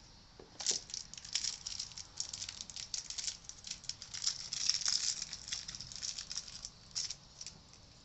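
Quick, irregular clicking and rattling of small hard parts being handled, starting about half a second in and thinning out near the end.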